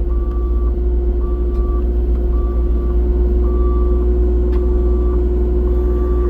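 Caterpillar excavator's engine running with a steady hum as its travel alarm beeps evenly, six beeps about a second apart.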